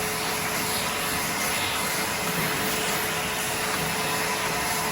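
A vacuum cleaner running steadily with a constant whine, sucking up leftover screen and spline residue.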